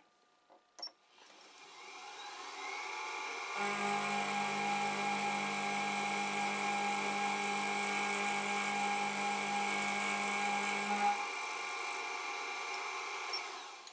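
Benchtop milling machine spindle spinning up with a rising whine and running steadily while an end mill takes a 15-thousandths pass down the side of a brass strip. A deeper steady hum sounds for about seven seconds in the middle, while the cutter works along the brass. The spindle winds down near the end.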